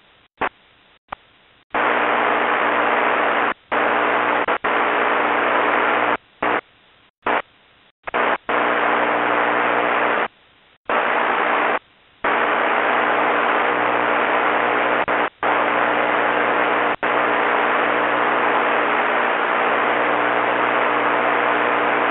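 Aviation-band radio scanner putting out bursts of static hiss with a steady low hum beneath, starting and stopping abruptly many times as the squelch opens and closes on unmodulated transmissions.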